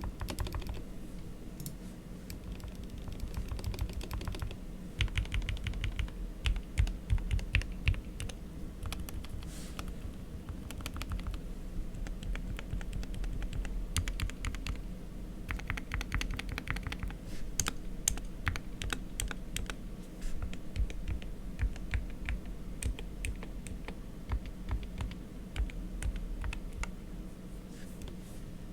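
Typing on a mechanical keyboard with Gateron Silver optical linear switches lubed with Krytox 205, in an SK-61 case with foam inside and ABS keycaps: a continuous stream of quick key clacks, with a louder run of strokes about five to eight seconds in.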